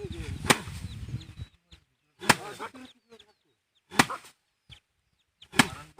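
Hand threshing of rice: sheaves of harvested paddy struck hard four times, about every one and a half to two seconds, each sharp whack followed by a brief rustle of straw and grain.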